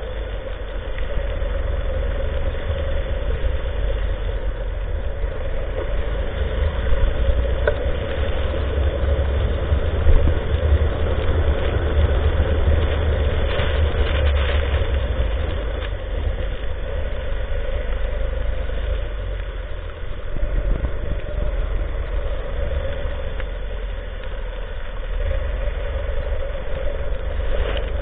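Go-kart engine running steadily at speed with a constant drone, easing off slightly a few times.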